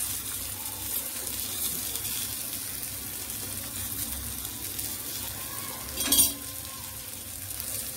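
Brinjal slices sizzling in a little oil in a steel frying pan, a steady high hiss, while the slices are turned over by hand. A brief louder knock about six seconds in.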